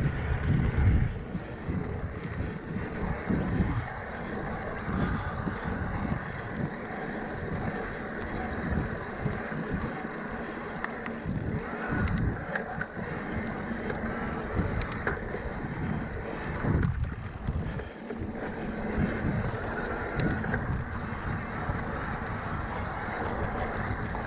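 Electric mountain bike riding over a dry dirt trail: knobby tyres rolling and crunching on the ground, with wind buffeting the camera microphone in gusts. There are a few small knocks and rattles from the bike over bumps.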